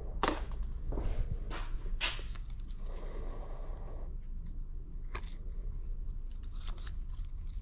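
Light handling of small metal tools on a workbench: scattered clicks and taps over a low steady hum.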